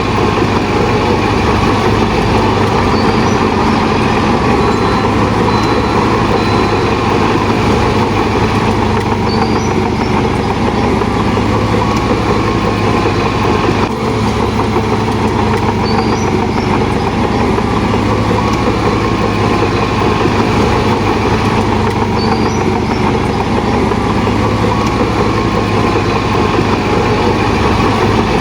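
Shantui DH17 bulldozer's diesel engine running loudly and steadily.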